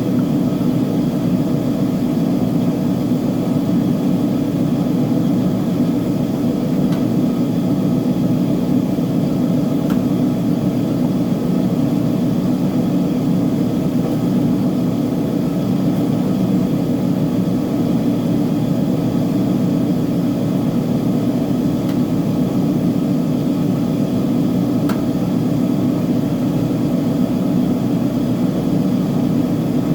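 Uni-Mac UniMat 35 front-load commercial washer-extractor running under a load of blankets: a steady, low, even hum of the motor and turning drum, unchanging throughout.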